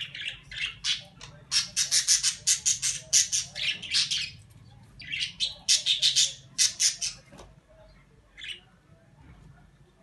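Cockatiels giving rapid runs of harsh squawking calls, about four a second, in two long bursts with a short gap between them, then a single call near the end.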